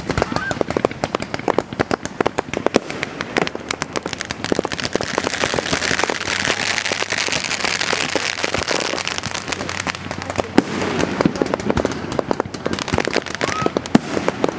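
Aerial fireworks display going off in a rapid, continuous barrage of bangs and crackling, the crackle thickest and densest in the middle.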